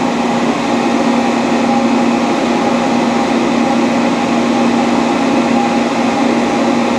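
Large Dainichi Model H lathe running with its spindle turning, a steady, even hum with a constant tone and no gear grinding: a smooth-running machine in good condition.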